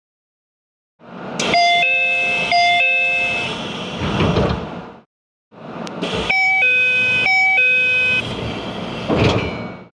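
Keio Line train door chime inside the car: a two-note chime (high then low) played twice, heard in two separate recordings with a slightly different pitch in each. Each chime is followed about a second later by the doors closing with a louder thump, over the noise of the car.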